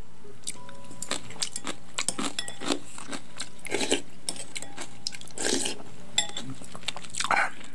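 Close-up eating sounds of rice soaked in cold barley water, eaten with kimchi: scattered light clicks of a spoon against the bowl and chewing, with a few louder mouth noises about four, five and a half and seven seconds in.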